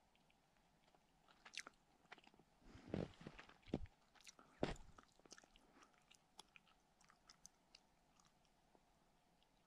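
Faint footsteps crunching in snow: three firmer steps about a second apart near the middle, among scattered light crackles.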